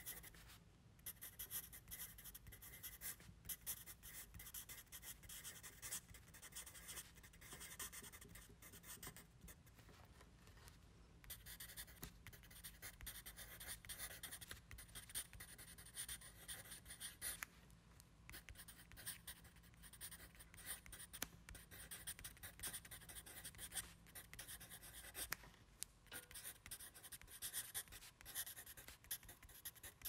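Handwriting on paper, heard close up as faint scratching strokes that stop briefly now and then between words, over a low steady hum.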